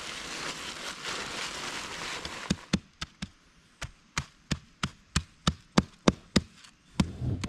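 Dry concrete mix hissing as it pours into a post hole for about two seconds, then a run of sharp knocks, about three a second.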